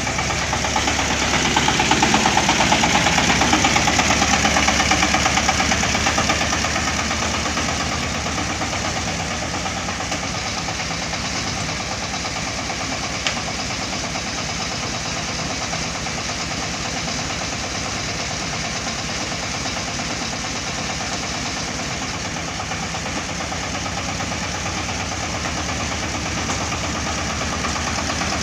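Engine of a corn harvesting machine running steadily with an even, rapid throb. It is louder for the first few seconds, then settles.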